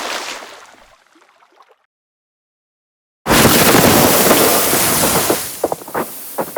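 Explosion debris sound effects: a splashing spray of water debris falls away and fades out in the first two seconds. After a short silence, snow debris comes in as a sudden loud rushing spray that thins out into scattered separate hits.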